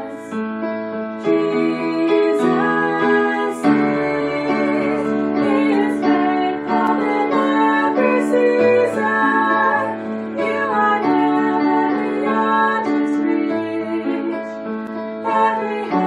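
A female vocalist singing a slow, sustained melody into a microphone, accompanied by piano chords.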